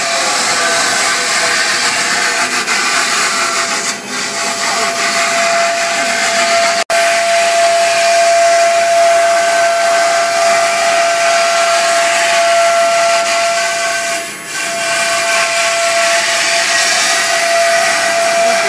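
The 13.5 kW air-cooled spindle of a CNC router running at speed: a steady high whine over loud rushing air.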